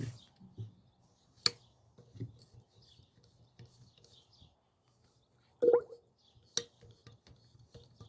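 Scattered light clicks and taps of a hand-operated hydraulic knockout tool being handled and pumped while oil is worked into it, with a short squeak a little before six seconds in.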